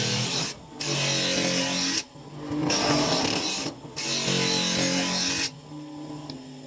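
Home-made bench-grinder sharpener running, its stone grinding a long planer knife blade in passes: a harsh grinding hiss over the steady hum of the grinder motor, broken by short gaps as the knife comes off the stone. The grinding stops about five and a half seconds in, leaving the motor running.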